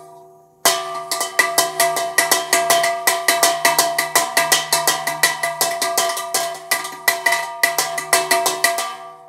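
The largest bell of a small set, called 'the giant', rung rapidly by its clapper at about five strokes a second over a steady ringing hum. It opens with the last of a single stroke dying away and ends with the ring fading out near the end.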